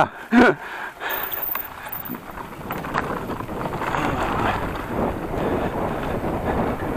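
Wind rushing over an action camera's microphone while riding an e-mountain bike, with the tyres rolling over the trail; a steady rush that builds after about a second.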